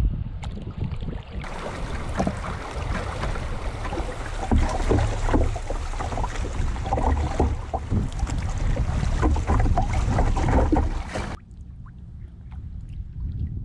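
Kayak paddled through choppy, fast-moving river water: rushing, splashing water and paddle strokes, with wind on the microphone. Near the end it cuts abruptly to the much quieter sound of the kayak drifting on calm water.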